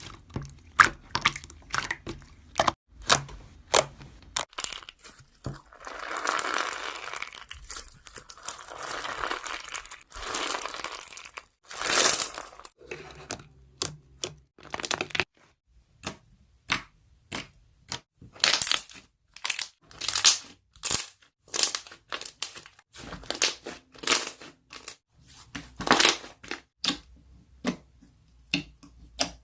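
Slime squished and pressed by hand, trapped air bubbles popping with many sharp clicks and snaps. Longer crackling stretches come about six, nine and twelve seconds in.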